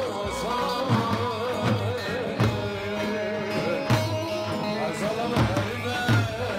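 Live Kurdish wedding music: a man sings through a microphone in a wavering, ornamented melody over a held instrumental note and beats on a large bass drum (davul).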